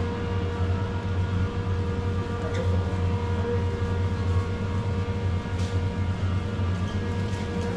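Steady low mechanical hum of a supermarket interior, with a few constant tones over it and a couple of faint ticks.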